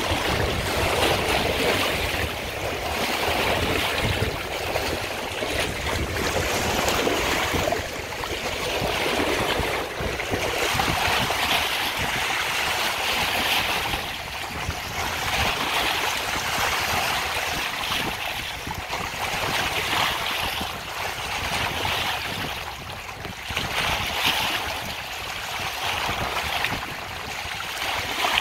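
Choppy sea surf washing around old wooden pier pilings, a steady rush of water that swells and eases every few seconds as the waves come through.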